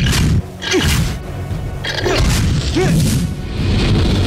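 Loud cartoon action music with sound effects laid over it: several sudden hits and booms and a few short swooping pitch glides.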